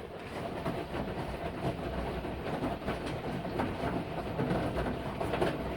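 Samsung washing machine running, a steady rumble with a fast, irregular clatter.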